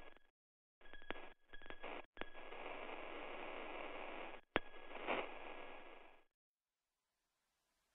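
Radio-style static: a hiss with a steady high whistle, broken by sharp clicks and short dropouts, cutting off suddenly about six seconds in.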